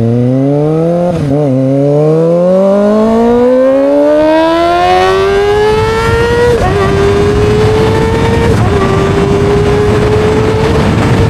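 Kawasaki Ninja ZX-25R's 249 cc inline-four engine under hard acceleration, its high-pitched note climbing for about six seconds with a short dip about a second in. It then drops slightly and holds a high, nearly steady pitch, with a brief dip about two seconds later.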